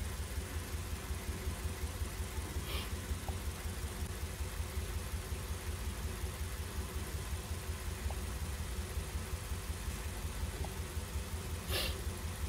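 Kia Rio four-cylinder engine idling with a steady, evenly pulsing low beat. The engine is misfiring on cylinders 2 and 4. Two short noises cut in, about three seconds in and near the end.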